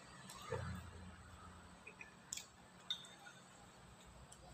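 Quiet eating sounds: a spoon clicks lightly against a bowl a few times, with soft chewing.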